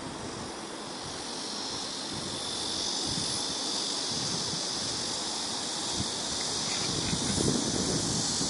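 Steady high-pitched insect chorus, swelling in level about two seconds in, over low gusts of wind on the microphone.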